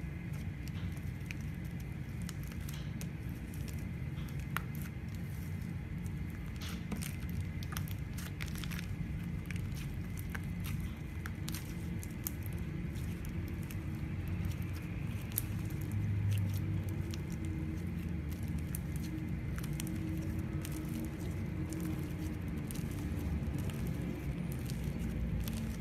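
Slime being squished and kneaded by hand, with a steady low rumble of handling and many small, irregular sticky pops and crackles.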